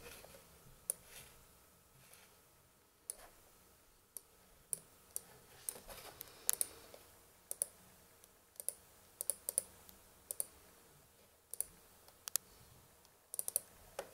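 About twenty sharp clicks at an uneven pace, some in quick pairs, from the pointer buttons of a laptop being clicked.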